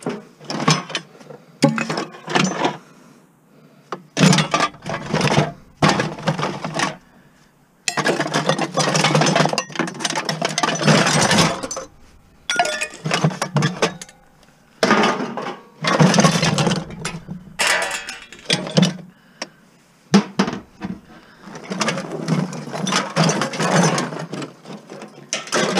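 Scrap metal being handled and sorted: irregular clattering and rattling of metal pieces, with several longer stretches of continuous scraping and rattling lasting two to three seconds.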